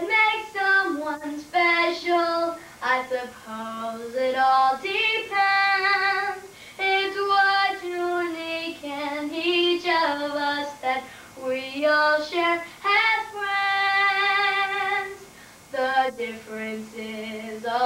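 A girl singing solo, a melody of held notes with slight vibrato, in phrases with short breaths between them and no accompaniment heard.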